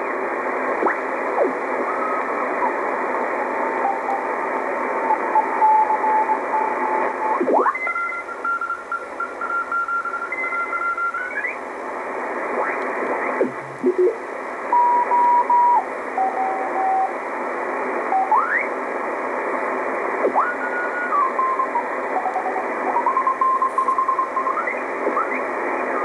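Icom communications receiver in CW mode being tuned across the bottom of the 20-metre (14 MHz) amateur band: steady band hiss with several Morse code signals heard as keyed beeping tones at different pitches. Their pitch slides up or down as the tuning dial passes over each one.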